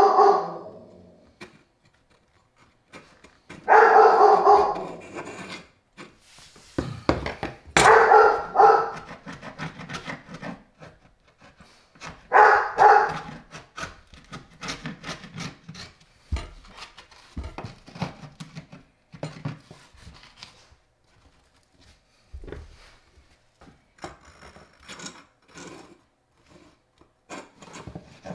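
A steel wood chisel scraping and paring raised chips off a particleboard countertop in many short strokes, with small clicks and scrapes. A dog barks loudly in drawn-out bursts: right at the start, and about 4, 8 and 12 seconds in.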